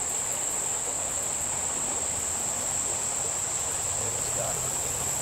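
Steady, high-pitched chorus of singing insects, over a soft, even rush of stream water.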